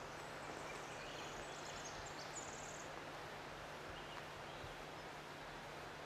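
Faint woodland outdoor ambience: a steady hiss and low hum, with a few faint high chirps in the first half.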